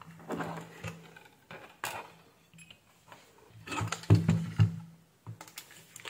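Scattered clicks and knocks as a digital multimeter and a hair dryer are handled on a workbench, with a short pause in the middle.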